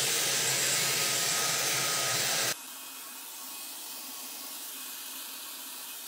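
Conair InfinitiPRO DigitalAIRE hair dryer with its diffuser attachment, running on medium heat and blowing a steady rush of air. About two and a half seconds in the sound drops suddenly to a much lower, still steady level.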